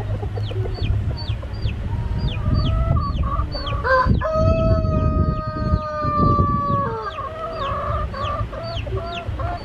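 A rooster crows once, a long drawn-out call starting about four seconds in, with shorter clucking calls before and after it. A small bird's high falling chirp repeats about twice a second throughout, over a steady low rumble.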